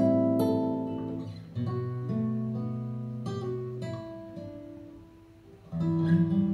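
Acoustic guitar music: plucked notes and chords that ring and die away, fading to a lull before a louder chord near the end, played back through Qinsound hi-fi loudspeakers.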